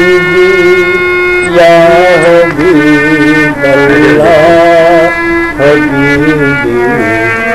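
Harmonium playing sustained reed notes and chords, with a man singing a na'at over it in an ornamented, wavering melodic line that comes in about a second and a half in and returns in phrases.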